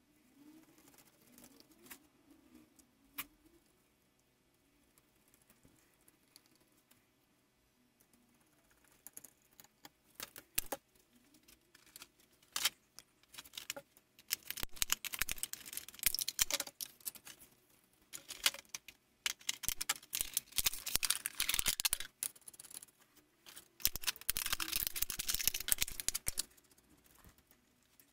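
Stiff plastic blister packaging of spiral fluorescent bulbs crackling and crunching as it is cut open with scissors and pulled apart, in two long stretches of dense crackle in the second half. Scattered clicks and taps of handling come before.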